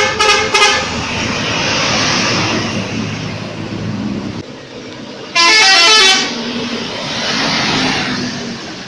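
Indonesian bus telolet horn, a multi-tone horn playing short tunes: a quick run of toots at the start, then a louder warbling melody of stepping notes about five and a half seconds in, lasting under a second. Between and after the horn bursts, the steady rush of buses and traffic passing.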